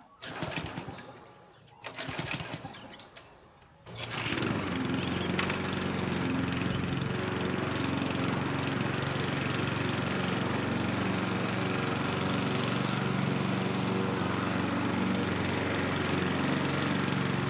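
Petrol walk-behind lawn mower being pull-started: it sputters briefly twice, then catches about four seconds in and runs steadily.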